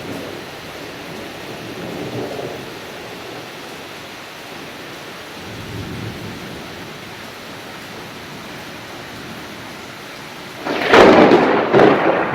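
Heavy thunderstorm rain falling steadily. Near the end, a sudden loud clap of nearby thunder breaks in and keeps rumbling.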